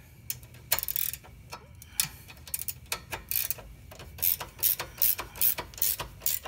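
Ratcheting box wrench clicking in repeated short strokes as a rear suspension linkage bolt is run down snug, the strokes coming steadily about three a second in the second half.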